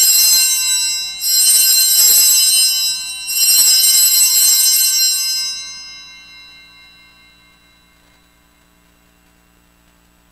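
Altar bells rung at the elevation of the host during the consecration: clear, high metallic ringing, struck again about two seconds apart, then fading away.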